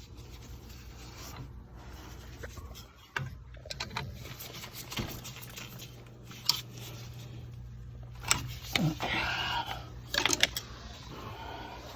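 Handling noise as a thermostat wire is worked into the terminals of a Honeywell aquastat relay box: scattered clicks, rubbing and scraping, busiest between about eight and ten seconds in, over a steady low hum.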